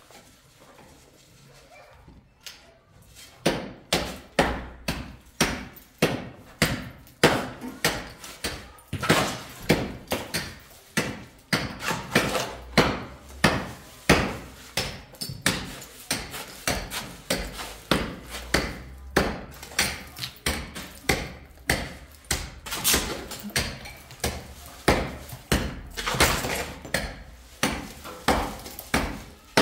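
A steel shovel scraping over a concrete floor and digging into a heap of sand-and-cement mix, with each load tipped into a wheelbarrow. It makes a steady run of scrapes and knocks, about one to two a second, starting a few seconds in.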